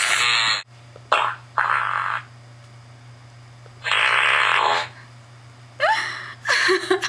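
Soundboard fart sound effects played one after another: about six farts of varying length, some short and some close to a second long, with a steady low hum underneath.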